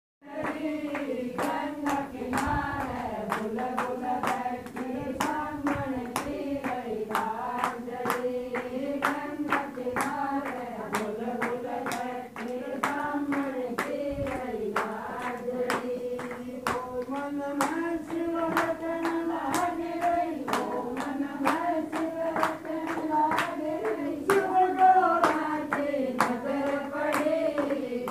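A group of women singing a Hindu devotional bhajan in unison, clapping their hands to a steady beat at about two claps a second.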